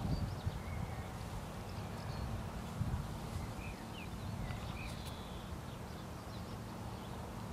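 Gusty low rumble of wind on the microphone, loudest at the start, with birds giving short chirps a few times.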